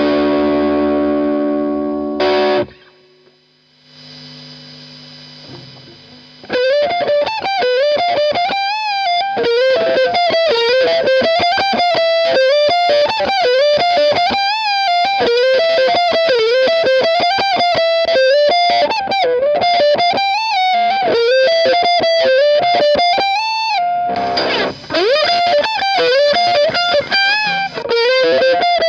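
Electric guitar played through a Walrus Audio Iron Horse LM308 distortion pedal. A held distorted chord is cut off after about three seconds, there is a short quieter stretch, then a fast single-note lead line, broken by a brief chord near the end.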